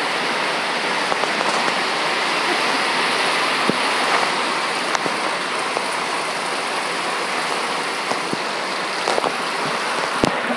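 Heavy rain pouring down, a steady hiss with scattered sharp drip and splash ticks, mixed with running floodwater.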